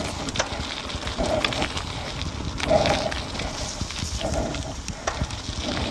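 A cyclist breathing hard in short puffs about every second and a half, over the steady rolling noise of mountain-bike tyres on a gravel track with scattered clicks and rattles.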